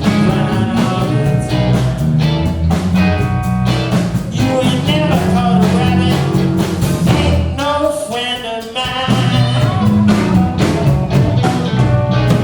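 Live rock and roll band playing a blues-based number on two guitars, bass and drums, with a steady drum beat and bass throughout.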